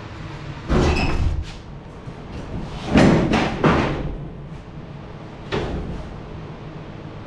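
Sheet-metal bed side panel of a 1971 Chevy K5 Blazer banging and clanking as it is wrenched and rocked by hand to work it free, its bolts already out. The first knock, about a second in, rings metallically. A cluster of bangs follows three to four seconds in, and one more comes about five and a half seconds in.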